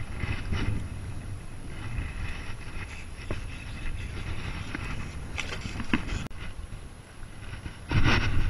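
Wind rumbling across a body-worn action camera's microphone, with a few sharp handling clicks and a louder gust of rush near the end.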